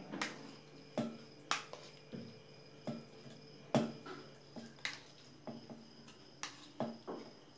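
A metal spoon clinking and scraping against a plastic bowl as raw chicken pieces are dropped into a stainless steel mixer jar: a string of irregular light clicks and soft wet taps.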